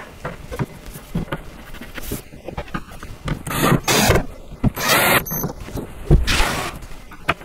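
Cordless drill driving large screws into the top panel of a flat-pack shelf unit, in several short runs of the motor with small handling clicks between.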